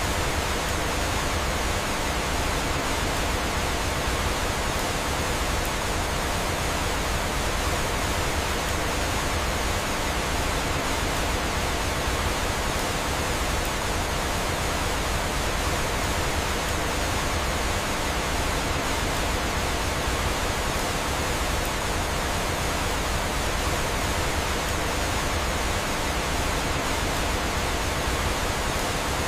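Steady rushing of flowing water, an even waterfall-like hiss that does not change.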